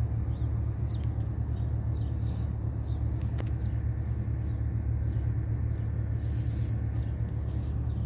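Steady low rumble, with a brief hiss about six and a half seconds in.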